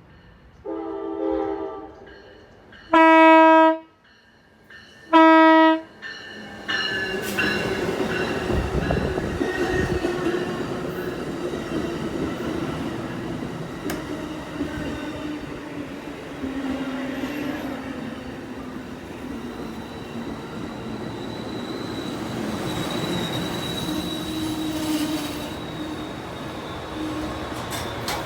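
A fainter multi-note horn sounds about a second in. Then come two loud, short blasts of a single-note truck air horn, each under a second long. A train then passes, rumbling, with a high squeal from its wheels.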